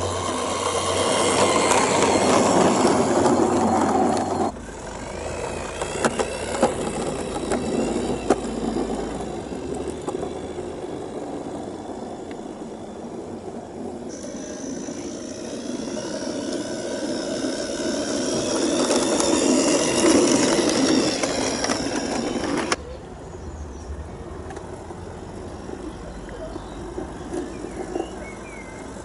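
A 16mm-scale garden railway railcar, driven by a gearhead motor through a bevel gear, running along the track with a steady mechanical rattle and scattered clicks of the wheels on the rails. It swells as the car approaches and passes, and cuts off suddenly about four seconds in and again near the end.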